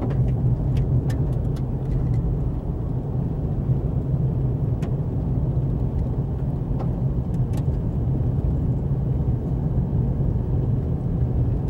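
Steady engine hum and tyre rumble of an SUV driving on a gravel dirt road, heard from inside the cabin, with occasional faint ticks.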